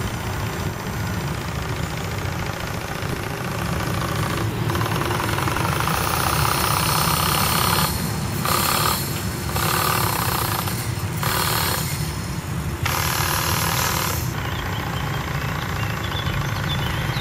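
Small model steam engine of a radio-controlled steam launch running with a rapid, steady knocking beat. Stretches of louder hiss come and go in the middle.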